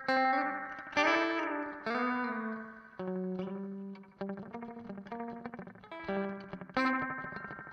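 Strat-copy electric guitar played through an amp simulator and a MiMiDi mini delay pedal with its delay time knob at 9 o'clock. A run of picked notes and chords, about one a second and closer together near the end, each one ringing out.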